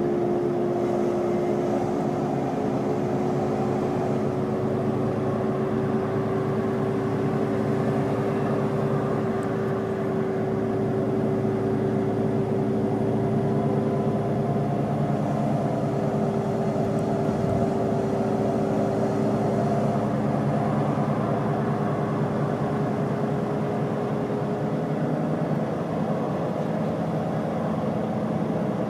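Iveco Crossway LE bus's Cursor 9 inline-six diesel engine running, heard from inside the bus, with a steady whine over the engine note that fades about two-thirds of the way through.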